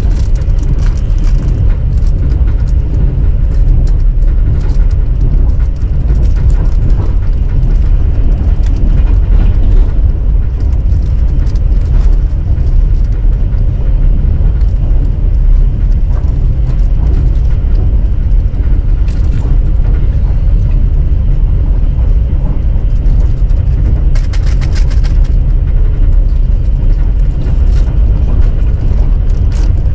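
Steady, loud low rumble of a vehicle in motion heard from on board, with scattered faint clicks and rattles over it.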